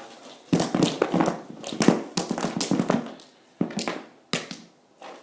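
A shower of small plastic lip balm tubes dropped from above, clattering down onto the floor: a dense run of quick knocks for a couple of seconds, then a few single stragglers hitting one by one.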